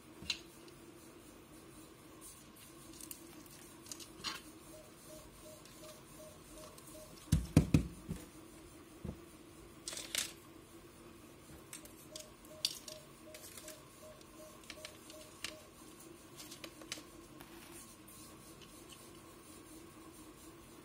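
Black plastic SMD tape holder modules being handled and fitted together on a table: scattered light clicks and taps, with a short cluster of louder thumps about seven and a half seconds in.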